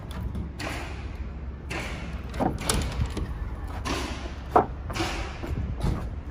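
Thuds and knocks on the timber of a wooden summerhouse, with the sharpest knock a little past the middle, over a steady low rumble and rushing swells of noise.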